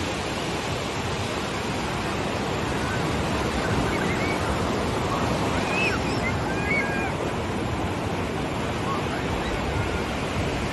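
Ocean surf washing onto a sand beach, a steady rush of breaking waves.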